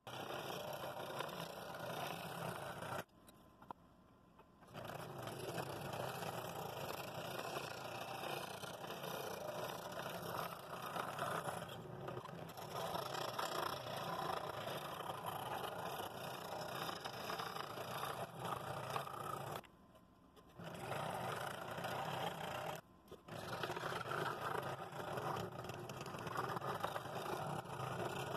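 Scroll saw with a number 7 blade cutting through thick, dense poplar: a continuous rasping buzz of the reciprocating blade chewing wood. It drops out briefly three times, longest about three seconds in. The cut is a hard one for the blade in such dense wood.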